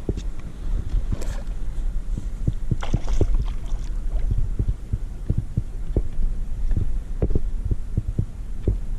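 Dull, irregular thumps and knocks on a plastic pedal kayak's hull over a steady low rumble, with a brief burst of noise about three seconds in.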